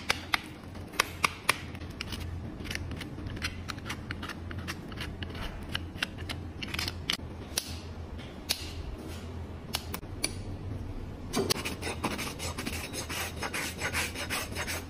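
Horse hoof being trimmed: a hoof knife paring the hoof with sharp clicking cuts, hoof nippers snipping off the outer wall, and from about eleven seconds in, a farrier's rasp filing the hoof bottom flat in dense scraping strokes.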